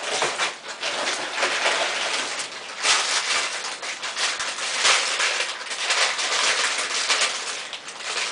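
Plastic carrier bag and cellophane-wrapped fudge packets rustling and crinkling as they are handled, with louder crackles about three and five seconds in.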